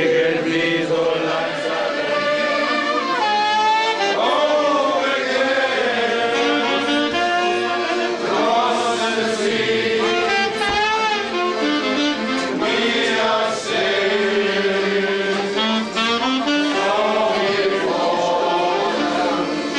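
Small live band of accordion, acoustic guitar and saxophone playing a tune without a break, with a group of people singing along.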